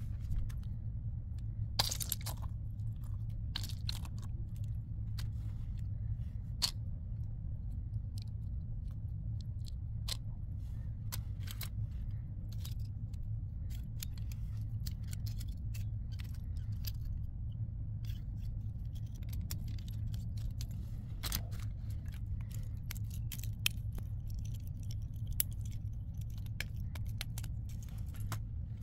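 Plastic fidget pens being handled and fiddled with: scattered sharp clicks and taps of plastic parts, a few louder than the rest, over a steady low hum.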